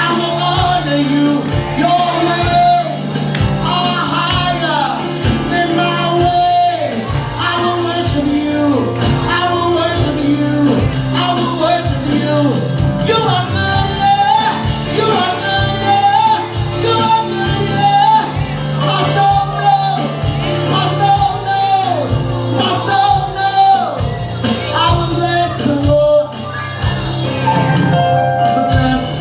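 Gospel worship song: singing voices carrying a melody over a band with a steady beat.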